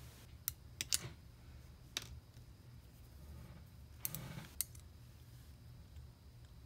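Faint sharp clicks and taps of painting tools being handled at the table: four scattered ones in the first two seconds and a short cluster about four seconds in, over a low steady hum.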